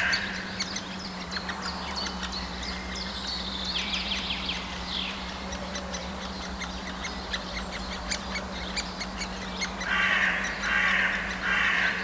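Great spotted woodpecker nestlings begging from the nest hole while an adult feeds them: a stream of short, high, chattering calls, with three loud harsh bursts near the end.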